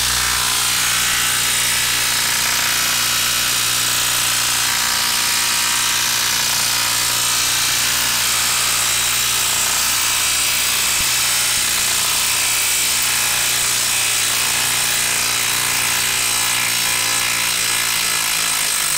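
Makita 18V cordless impact wrench hammering without a break as it backs a long screw out of a wet log, the moisture in the wood making it labour under heavy friction. It stops abruptly near the end as the screw comes free.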